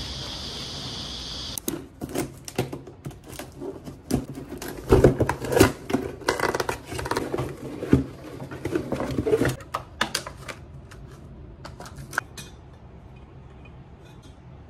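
Cardboard packaging of a flat-packed table lamp being opened and handled on a desk: a busy run of rustles, scrapes and sharp clicks that dies down to quiet room tone about two seconds before the end.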